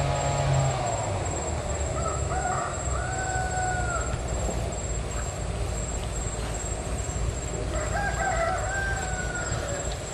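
A rooster crowing twice, once about two seconds in and again near eight seconds, each crow a drawn-out call of a second or two over steady background noise.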